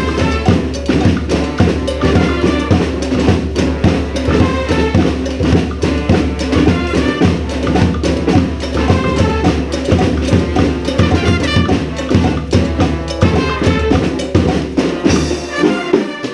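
Brass band with drums playing a salsa tune: horns over a busy, steady percussion beat.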